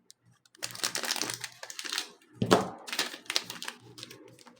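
Foil trading-card booster pack wrapper crinkling and crackling in the hands as it is worked open, with one sharp, loud crackle about halfway through.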